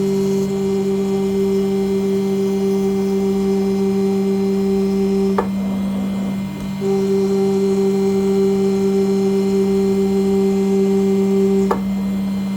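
CNC engraving machine working on an aluminium nameplate: a steady machine hum with a higher second tone. The higher tone cuts off with a click about five seconds in, comes back about a second and a half later, and cuts off with another click near the end.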